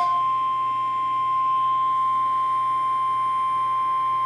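NOAA Weather Radio's 1050 Hz warning alarm tone, one steady unbroken beep that alerts listeners to an Emergency Alert System message, here a severe thunderstorm watch.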